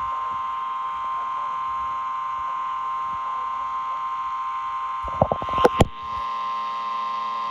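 Emergency alert attention tone: a loud, steady electronic alarm tone. About five seconds in it is broken by a brief burst of sharp clicks and a short dropout, then carries on steadily.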